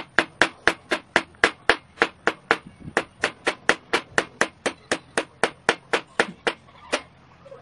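Kitchen knife chopping bottle gourd (upo) on a plastic cutting board: a steady run of sharp knocks, about four a second, that stops near the end.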